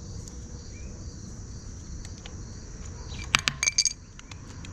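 Steady high-pitched chirring of insects in the background. About three and a half seconds in, a quick cluster of sharp metallic clinks with a brief ring: small metal tools and brake parts knocking together at a motorcycle front brake caliper.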